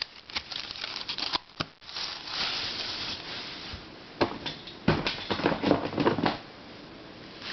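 Plastic puzzles being handled and set down: scattered clicks and knocks with a stretch of rustling.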